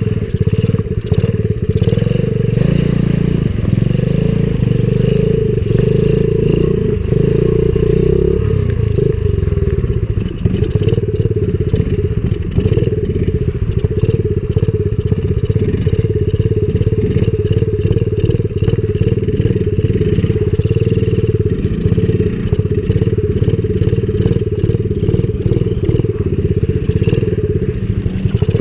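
Small pit-bike engine running steadily under way on a rough, muddy trail, with frequent knocks and rattles from the bike over the ground.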